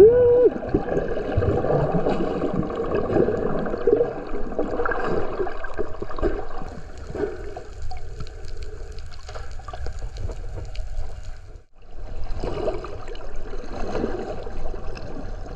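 Water bubbling and gurgling in an irregular wash, with a short rising squeal at the very start and a brief drop-out about twelve seconds in.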